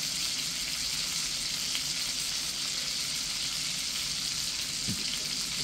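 Bone-in pork chops sizzling steadily in a cast-iron skillet of butter, olive oil and bacon grease.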